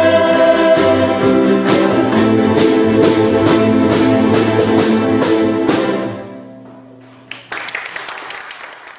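Ukulele ensemble strumming chords together in a steady rhythm, with voices singing at the start, ending on a final chord that rings out and fades about six seconds in. A sudden burst of noise follows a little later and trails off.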